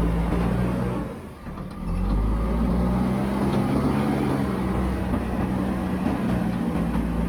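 Diesel engine of a JCB backhoe loader running steadily under work, with a brief dip in loudness about a second in before it picks up again.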